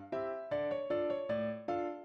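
Background music: a light piano tune, its notes struck evenly about two or three times a second.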